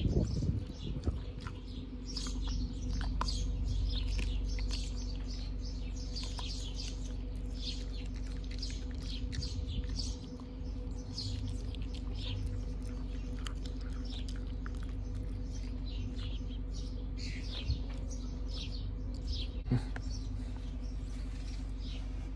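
Small birds chirping over and over above a steady low hum, with a few soft clicks from a husky chewing a dried beef chew strip.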